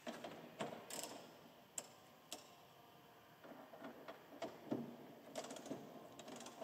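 Light metallic clicks and clinks of a hand wrench turning a bolt at the hinge of a corn head's hood: a few separate clicks in the first half, then a denser run of clicks.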